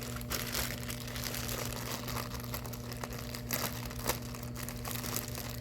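Packaging crinkling and rustling in irregular crackles as items are handled and unpacked by hand, over a steady low hum.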